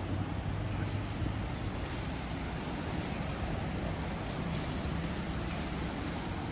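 Steady background noise of a shopping street, with a low rumble and a few faint clicks.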